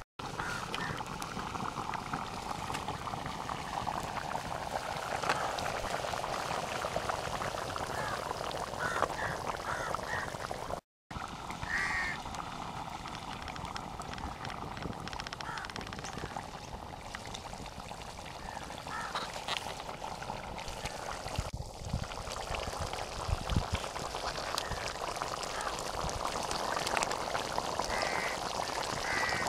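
Chicken gravy simmering in a pot over a wood fire: steady bubbling with the crackle of burning firewood. A few short animal calls sound now and then in the background.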